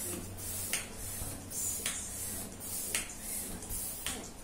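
Hand balloon pump inflating a white 12-inch latex balloon, each stroke a short rush of air, about two strokes a second.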